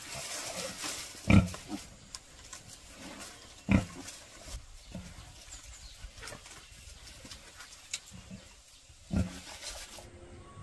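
Pigs, a sow with her suckling piglets, grunting: three loud short grunts a few seconds apart among fainter ones, over a faint rustle.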